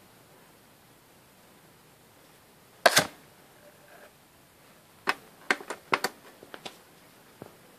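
Clicks and taps of a compact disc being handled at a disc player: one loud double click about three seconds in, then a quick run of about nine smaller clicks a couple of seconds later and a last one near the end.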